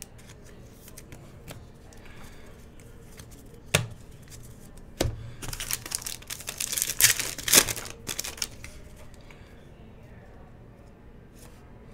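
Trading cards and plastic being handled: a couple of sharp clicks, then a few seconds of crinkling and tearing as a card pack's wrapper is opened, followed by softer shuffling of cards.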